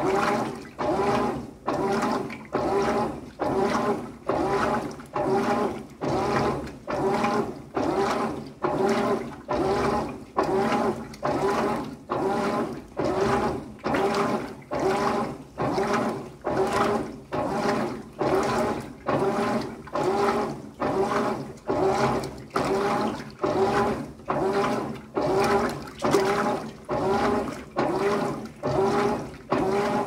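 GE GTW465ASN1WW top-load washing machine agitating a load of towels and rags: the agitator swishes the water back and forth about once a second, each stroke carrying a motor hum.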